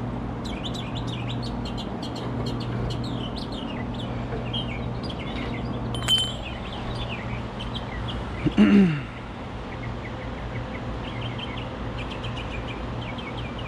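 Birds chirping, many short high calls, over a steady low hum. A sharp click sounds about six seconds in, and a brief louder sound comes about two-thirds of the way through.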